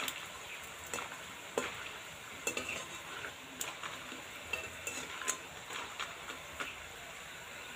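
Nimki dough pieces deep-frying slowly in oil in a metal wok, a steady soft sizzle, with scattered light clinks as a perforated metal skimmer stirs and turns them.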